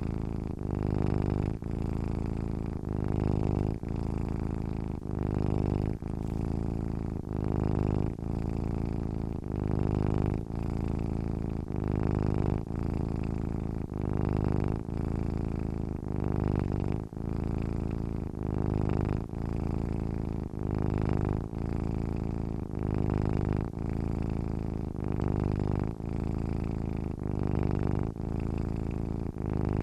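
Domestic cat purring while asleep, a low continuous buzz that breaks briefly about once a second as it switches between in-breath and out-breath. It swells about every two seconds with each full breath.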